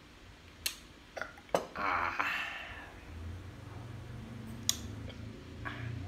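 A few sharp clicks and knocks as a drinking glass is handled and set down on a table, with a short breathy rush about two seconds in. A low steady hum comes in about three seconds in.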